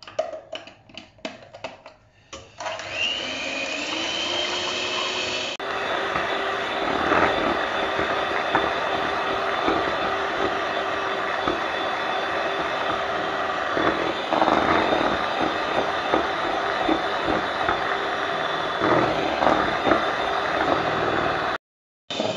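Electric hand mixer beating eggs and sugar in a stainless steel bowl to a fluffy foam. A few clicks come first; about two and a half seconds in the motor starts, its pitch rising as it comes up to speed, and then it runs steadily with a few louder swells. It cuts off suddenly near the end.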